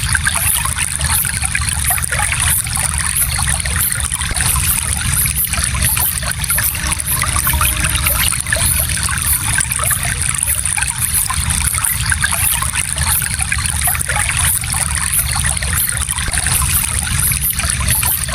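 Gentle stream flowing, with a steady trickling and babbling of water.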